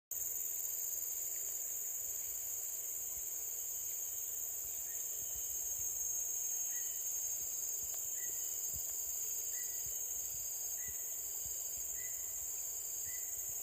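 Insects giving a steady, high-pitched drone. From about five seconds in, a faint short chirp repeats every second or so.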